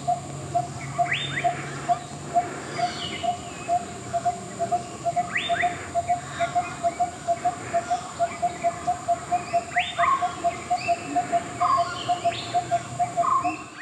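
Forest birds calling. One bird repeats a short note about three to four times a second throughout, and another gives a rising whistle every four or five seconds, with scattered shorter chirps between.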